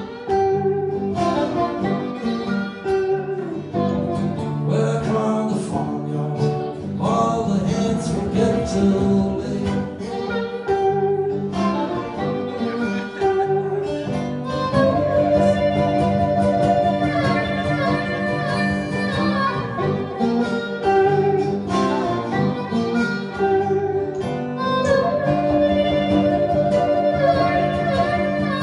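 Slow blues played live: a harmonica takes an instrumental solo over two guitars, one of them a tenor guitar, keeping a steady accompaniment. The harmonica holds long notes twice, in the middle and near the end.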